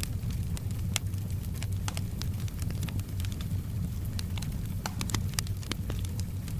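Wood fire crackling, with irregular sharp pops and snaps, several close together around the middle and again near the end, over a steady low rumble of the flames. Soft rain hisses faintly behind it.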